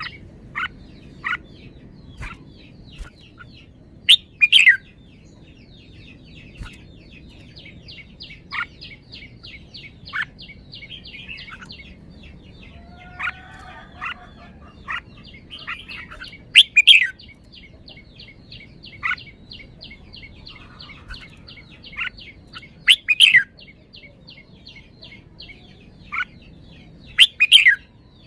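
Red-whiskered bulbul singing in short, bright phrases, with a loud burst of song about four seconds in and again three more times later. Between phrases there are single call notes, and for long stretches a fast, even ticking trill runs in the background.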